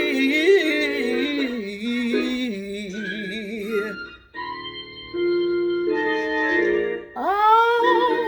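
A woman singing gospel without words, holding a long note with a strong vibrato over sustained organ chords. After about four seconds the organ plays on alone. Near the end her voice slides up into a new note.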